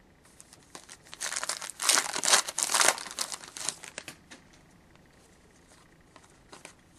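Wrapper of a hockey card pack being torn open and crinkled. The crackling is loudest from about one to four seconds in, then drops to a few faint rustles as the cards are handled.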